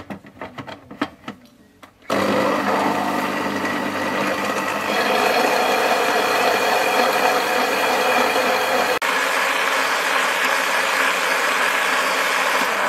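Electric blender with a glass jar running, blending chopped watermelon into juice. It starts about two seconds in, after a few clicks of the jar and lid being handled, then runs steadily with one brief break near nine seconds.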